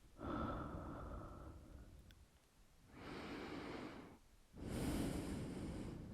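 Close-microphone breathing: three slow, breathy breaths, each lasting about a second and a half, the first and last the loudest.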